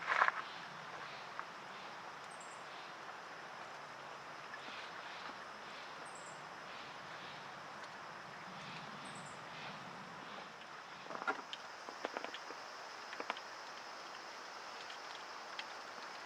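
Quiet outdoor ambience: a steady even hiss, with short high chirps every three to four seconds and a few soft clicks and knocks about eleven to thirteen seconds in.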